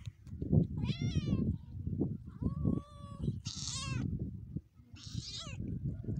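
Young tabby cats meowing, about four separate wavering meows, one of them loud and high near the middle, over a constant low rustling.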